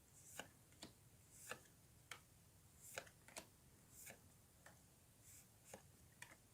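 Faint handling of Pokémon trading cards, flipped one by one: soft clicks and slides of card stock, about two a second.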